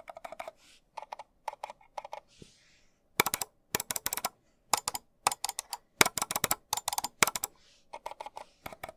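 Mouse buttons clicked repeatedly close to the microphone. The Logitech MX Master 3S gives muted, quiet clicks; from about three seconds in, the older MX Master 3 gives sharper, louder clicks; near the end come the muted clicks again.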